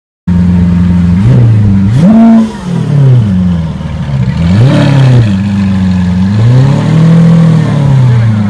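Lamborghini Veneno Roadster's 6.5-litre V12 idling and being revved, its note rising and falling about four times: quick blips and one slower, longer swell. It cuts in abruptly at full loudness.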